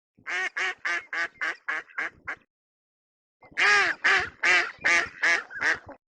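Duck quacking: a run of about eight quick quacks, a pause of about a second, then a louder run of about seven more.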